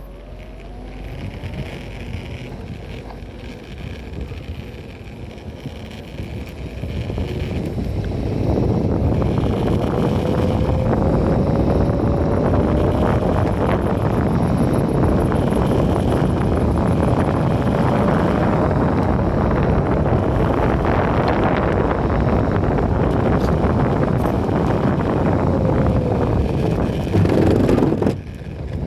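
Wind rushing over the phone's microphone while riding an Enertion Raptor 2 direct-drive electric skateboard. It builds over the first eight seconds or so as speed picks up, then holds loud. A faint whine rises and falls in pitch underneath.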